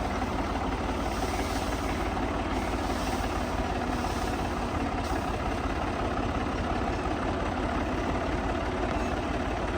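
Massey Ferguson 385 tractor's four-cylinder diesel engine running at a steady speed while powering a belt-driven mustard thresher.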